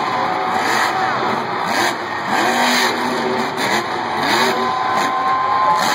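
Grave Digger monster truck's supercharged V8 engine revving hard, its pitch rising and falling in repeated bursts over the jumps, with arena crowd noise underneath.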